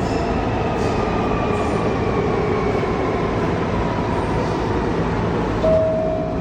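R68 subway car running with a steady rumble of wheels on rail and a faint motor whine that falls slowly in pitch. Near the end the car's door chime sounds its first, higher note.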